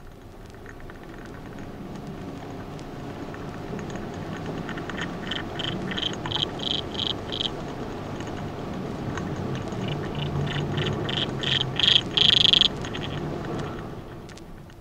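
Water boatman stridulating: two runs of rapid, evenly spaced high chirps, about three a second, one in the middle and a louder one toward the end, over a steady low rumble.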